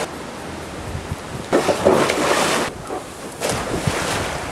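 Children splashing in a large backyard paddling pool, with two bursts of splashing, the first about a second and a half in and the second near the end.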